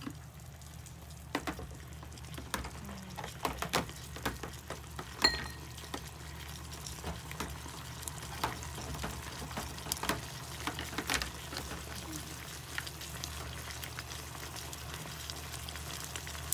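Chicken, onion and carrot in sweet-and-sour sauce sizzling in a non-stick pot as wooden chopsticks stir, with many light clicks of the chopsticks against the pot and the food; the sharpest knock comes about five seconds in. A steady low hum runs underneath.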